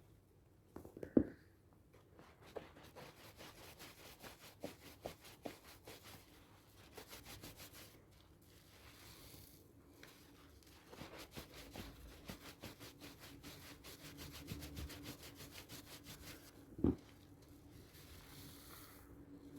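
Hard, dry handmade sea salt and charcoal soap being rubbed and lathered with quick, scratchy strokes. Two sharp knocks come about a second in and near the end.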